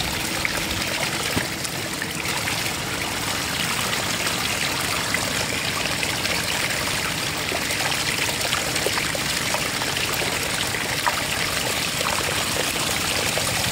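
Floodwater running and trickling steadily, with many small patters and splashes through it.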